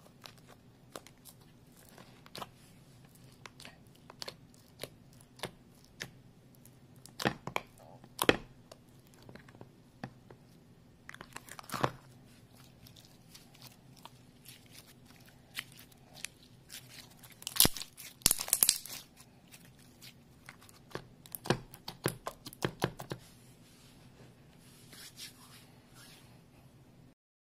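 Slimes being poked, squeezed and stretched by hand: sticky clicking and popping, with several louder flurries of crackling. A faint steady low hum lies underneath.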